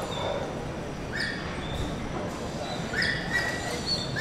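German Shepherd whining in short, high-pitched whines, four times, over a steady background hiss.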